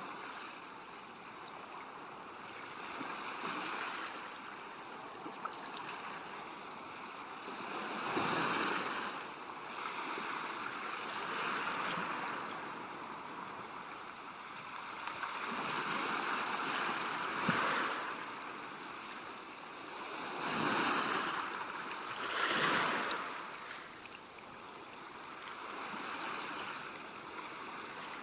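Ocean waves breaking and washing in, a steady hiss that swells and ebbs every few seconds, with the biggest surges about a third of the way in and twice near three quarters through.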